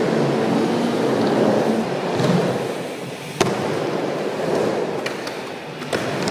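Skateboard wheels rolling over skatepark ramps: a steady rumble, with one sharp clack of the board a little past halfway and a lighter one near the end.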